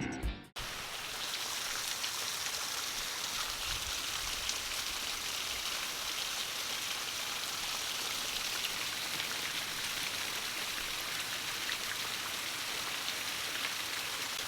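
Heavy rain coming down steadily, an even hiss of drops on surfaces. A strain of guitar music cuts off in the first half second.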